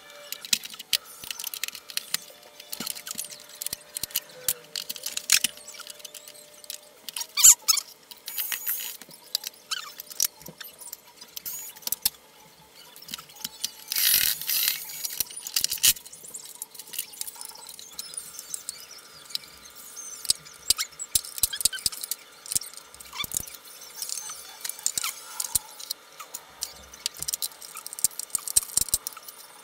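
Plastic and metal parts of a vacuum cleaner clicking, knocking and scraping as it is taken apart by hand, with irregular small clicks and squeaks throughout and a longer scraping rasp about halfway through.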